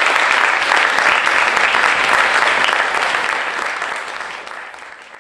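Audience applauding: dense, even clapping that fades away over the last two seconds.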